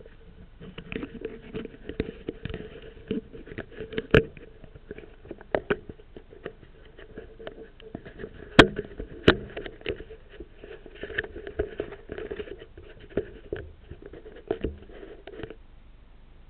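Fingers handling a small action camera, rubbing and knocking against its casing right at the microphone: a run of irregular taps, clicks and scrapes that stops shortly before the end.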